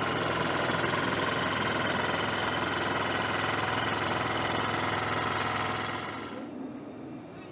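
Engine of a weapons-loader lift truck running steadily with a droning hum. It drops away about six seconds in.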